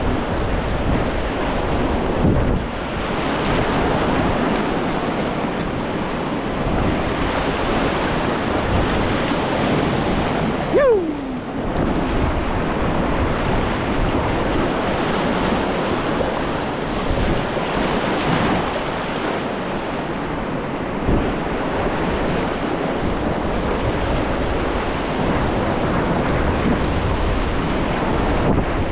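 Whitewater of a long river rapid rushing and churning steadily, with wind noise on the microphone. About eleven seconds in, a brief squeak falls sharply in pitch.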